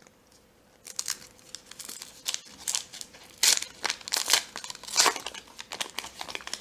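Foil trading-card pack being torn open by hand: crinkling and ripping of the foil wrapper in a run of crackles that starts about a second in.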